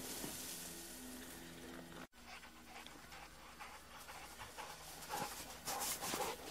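A dog panting close by and steps crunching in fresh snow, louder near the end. The sound cuts out for an instant about two seconds in.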